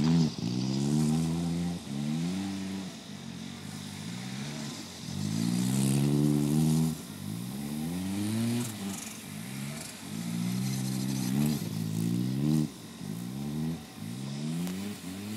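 Ford Escort estate's engine revving hard again and again while the car spins doughnuts on grass, each climb in pitch followed by a drop, the longest rise lasting about two seconds near the middle.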